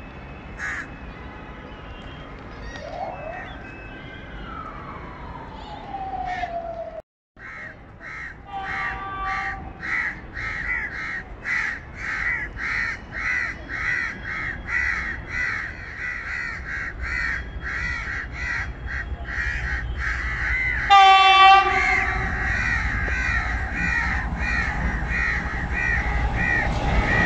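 Crows cawing in a steady run of about two calls a second. About two-thirds of the way in, a GE GEU-40 diesel-electric locomotive sounds one short, loud horn blast, the loudest sound here. The locomotive's low engine rumble then grows as it approaches.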